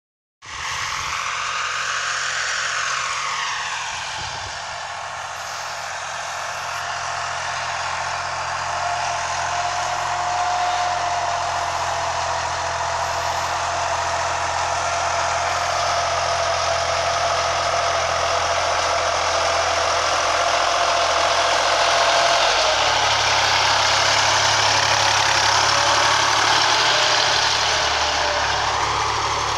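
Fiat 480 tractor's diesel engine running steadily, with its low engine note shifting about two-thirds of the way through.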